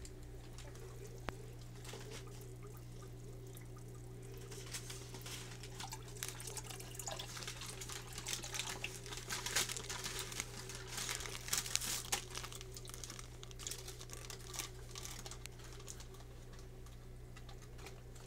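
Aquarium water trickling and splashing over a steady low hum, with a stretch of small crackles and splashes through the middle.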